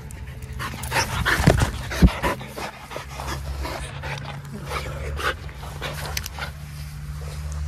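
Whippet panting hard, close to the microphone, out of breath after running fast. About a second in there is a flurry of sharp thumps and rustles.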